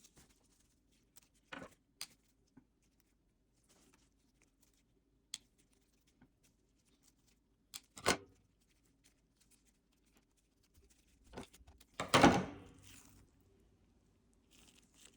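Hand handling noise while plant cuttings are pushed into a peat moss and perlite mix: scattered small rustles and clicks, with a sharp knock about 8 seconds in and a louder rustling crunch around 12 seconds.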